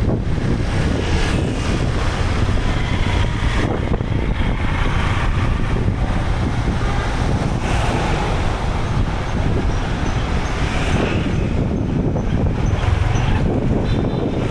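Wind buffeting the microphone with a steady low rumble over street traffic noise.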